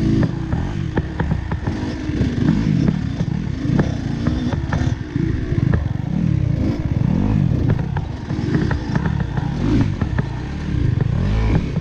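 Dirt bike engine revving up and down over and over as the throttle is blipped, with frequent clattering knocks from the bike working over rocky ground.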